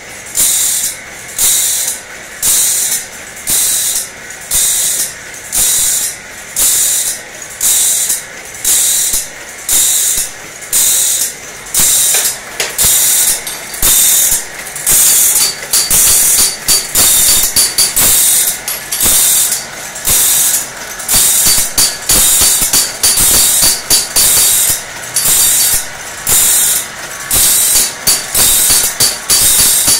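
Automatic band saw blade sharpening machine grinding the blade tooth by tooth: a rhythmic, high-pitched rasp of the grinding wheel on steel about three times every two seconds, with the clack of the mechanism that advances the blade. From about twelve seconds in the strokes come closer together and less evenly.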